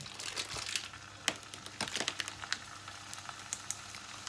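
Light crinkling and scattered clicks of the plastic-and-paper packaging of ground-beef patties being handled and peeled apart, with a couple of sharper clicks near the middle.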